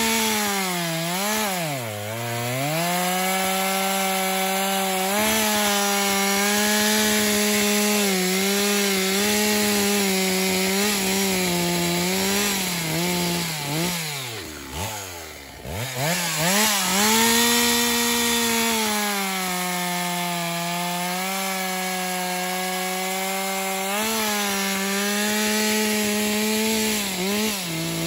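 A 1990 Stihl 064 AVEQ two-stroke chainsaw with a 40 cm bar and full-chisel chain, cutting discs off a spruce log at full throttle. The engine note holds steady under the cut, dips briefly about two seconds in, and falls almost to idle around the middle before revving back up. It drops again near the end.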